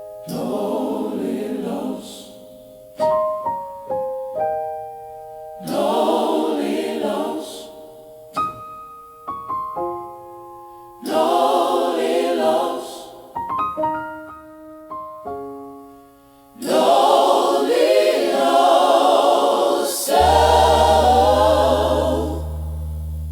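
Gospel choir singing sustained phrases, answered between phrases by short runs of single piano notes; a deep bass enters under the choir near the end.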